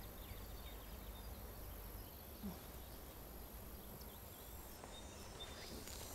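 Quiet outdoor ambience: a low background hum with a few faint, scattered bird chirps.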